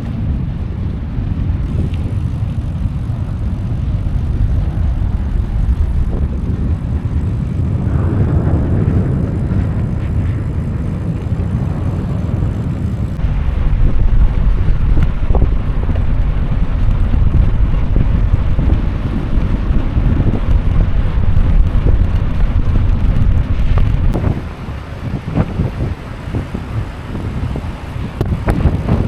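Wind buffeting the microphone while riding a bicycle: a heavy, steady low rumble that gets louder about halfway through and eases off near the end.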